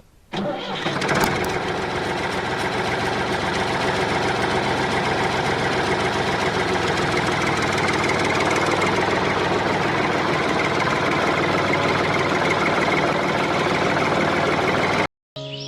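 An engine or motor running steadily at an even speed, starting abruptly and cutting off suddenly near the end.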